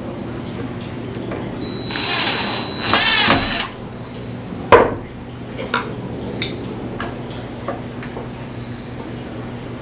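Cordless drill whirring briefly for about a second and a half while pre-drilling screw holes in the wood, followed by a sharp knock and a few lighter clicks of tools and parts being handled.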